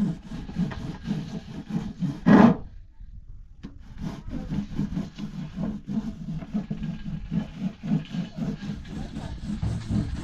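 A hand rubbing flour on a round wire-mesh sieve: a rhythmic scraping of about three to four strokes a second. A brief loud sound comes about two seconds in.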